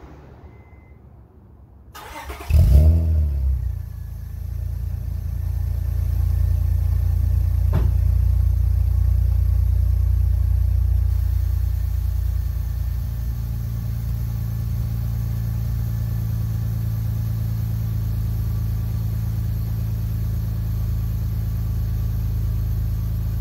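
Honda 3.0-litre V6 of an Acura 3.0 CL started for the first time through a newly fitted aftermarket catback exhaust. It cranks briefly, catches about two seconds in with a quick rev flare, then runs at a raised idle that eases down to a steady lower idle a few seconds later.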